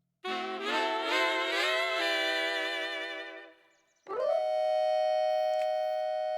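Cartoon sound effects: a long wavering howl that fades away, then, after a brief silence, a tone that rises and settles into a steady held note.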